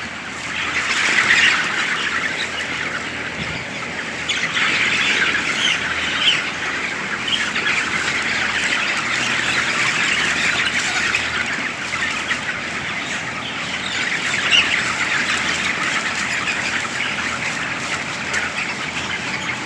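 A large crowded flock of chickens in a poultry house calling all together: a continuous mass of overlapping cheeps and squawks, swelling and easing a little.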